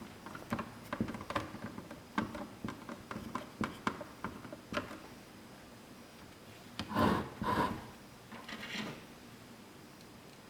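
Screws being driven into the front bracket of a heat press with a Phillips screwdriver: a run of small clicks and scrapes, then two louder short knocks or handling noises about seven seconds in.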